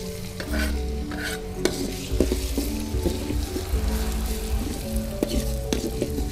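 Chopped shallots and garlic sizzling as they are sautéed in hot oil in a wok, with a metal spatula scraping and clicking against the pan as they are stirred.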